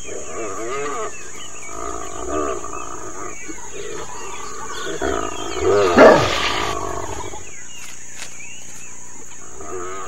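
African wild dogs twittering and squealing in their excited pre-hunt greeting, many short wavering high calls overlapping. About six seconds in comes the loudest call, sliding down steeply in pitch.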